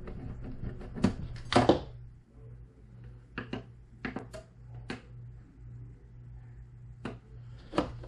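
Clicks and light knocks from pressing the buttons on a Bluetti AC70 portable power station and handling a plastic electric lunch box. There are several separate taps, with the loudest knock between one and two seconds in, over a steady low hum.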